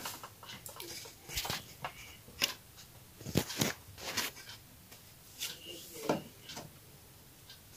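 Plastic bag crinkling as chocolate biscuits are taken out by hand and laid into a glass baking dish: a string of short, irregularly spaced rustles and light clicks.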